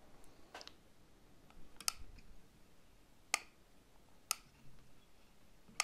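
A handful of sharp, separate clicks about a second apart as solder and flux are melted onto a circuit board's copper traces with a soldering iron: flux crackling and spitting as it heats.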